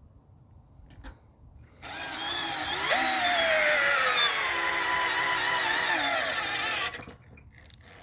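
A Craftsman 19.2-volt cordless drill drives a lag bolt into a pre-drilled Douglas fir 4x4. The motor whine starts about two seconds in and its pitch falls steadily as the bolt bites deeper and the drill bogs down under load. It stops about seven seconds in, with the bolt only part of the way in.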